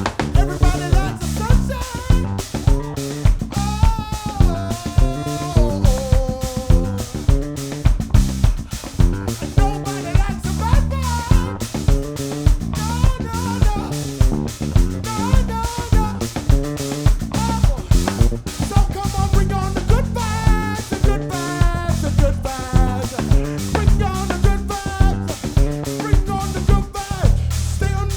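Live band playing an instrumental funk groove: drum kit keeping a steady beat of about two hits a second under bass and a melodic lead line.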